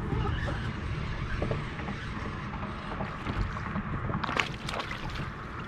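Wind rumbling on the microphone out on open water, with water lapping at the boat and a few sharp clicks a little past four seconds in.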